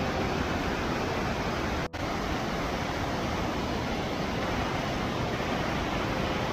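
Steady rush of a waterfall, broken by a momentary dropout about two seconds in.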